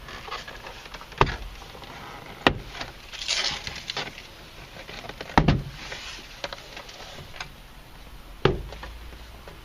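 Plastic retaining clips of a Honda Accord coupe's door trim panel popping loose one at a time as the panel is pried off from the front: four sharp snaps, about a second, two and a half, five and a half and eight and a half seconds in, with a rustle of the panel between the second and third.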